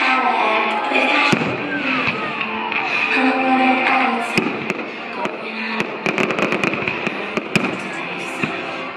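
Fireworks going off over music playing: a few single bangs in the first half, then a rapid run of sharp crackling reports from about the middle.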